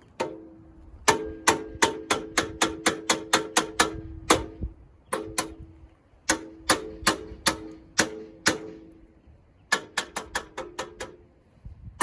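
Hammer tapping a steel chassis rail on a 1974 Reliant Scimitar GTE to nudge it into position. There are three runs of sharp metal strikes, about four to five a second, and each strike rings briefly with a steady tone.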